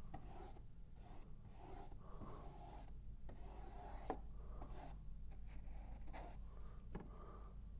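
Paintbrush scrubbing oil paint onto the painting surface in short, faint strokes, with a sharp tap about four seconds in.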